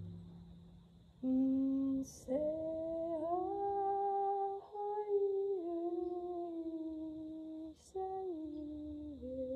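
A woman's wordless singing in long held notes that step and slide between pitches, beginning about a second in. It starts over the fading boom of a frame drum struck just before.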